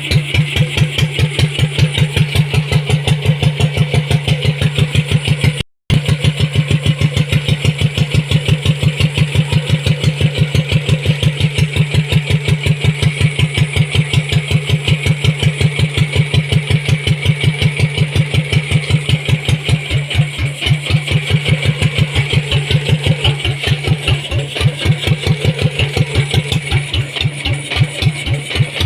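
Kubota diesel engine converted to run on a carburetor, running at a steady speed with even, regular firing pulses. The sound drops out for a split second about six seconds in, then carries on unchanged.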